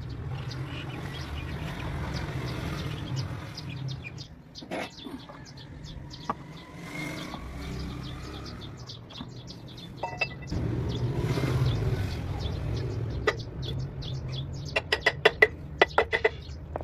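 Hammer striking the steel rear wheel hub of a Massey Ferguson 375 tractor: a quick run of about eight sharp metallic taps near the end, with scattered single clinks of metal parts being handled before it, over a steady low rumble.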